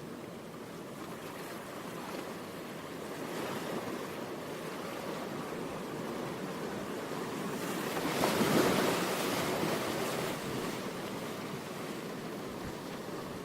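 Steady rushing noise with no pitch or rhythm, swelling to its loudest about eight to nine seconds in and then easing off.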